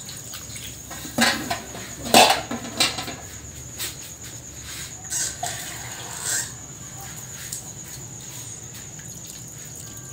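Water poured from a plastic container into a wok of simmering pork broth, splashing in a few short bursts, most of them in the first three seconds, over a steady high hiss. The broth is being topped up because it has cooked down.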